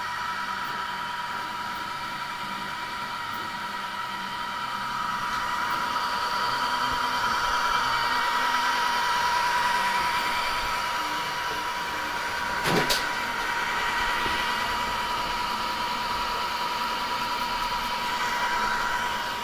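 Home-built 3D printer running, a steady whine of its stepper motors and fans that swells and eases as the print head moves. A single sharp click about two-thirds of the way through.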